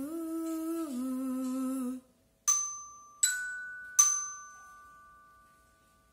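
A woman hums a held note that steps down to a lower one about a second in and stops at about two seconds. Then a small tuned metal percussion instrument is struck three times in even succession, the middle note higher, each note ringing and fading away.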